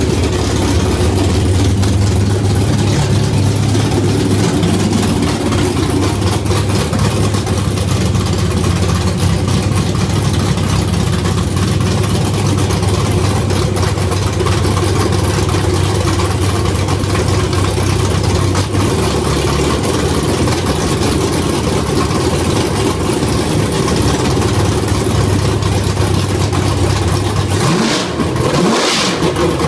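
Modified Ford Mustang engine running loud and steady at idle, with a short rev near the end.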